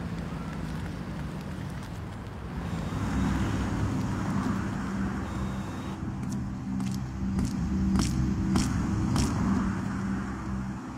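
Car running with a steady low hum and road noise. In the second half there is a run of short sharp ticks, about every half second.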